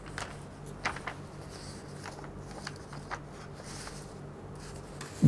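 Quiet background with a low, steady hum and a few faint, short clicks scattered through it.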